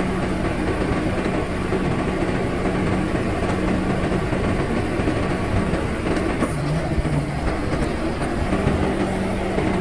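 DLC 225 hydraulic excavator running under load: a steady engine drone with rattling and clanking over it. The drone dips lower in pitch briefly a few times after the middle and comes back up.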